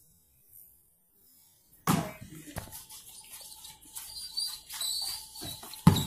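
Nearly silent for about two seconds, then live court sound cuts in: a basketball bouncing on a concrete court in several sharp thuds, the loudest just before the end as it is dribbled low, with some high squeaks among them.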